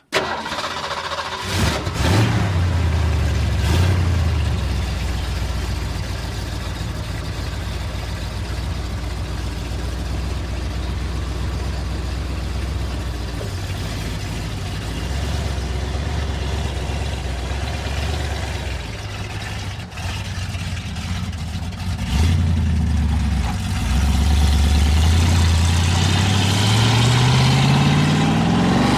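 Ford Mustang engine starting about a second and a half in and blipped twice, then idling steadily. It revs up again about three quarters of the way through, and near the end its pitch rises steadily as the car accelerates.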